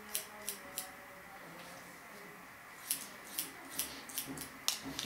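Barber's scissors snipping hair cut over a comb, each snip a short sharp click. There are three snips in the first second, then after a pause of about two seconds a quicker run of about six.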